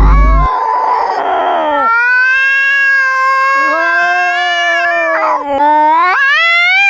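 A tabby cat yowling: one long, drawn-out meow held at a nearly steady pitch for several seconds, then a shorter call that rises in pitch near the end.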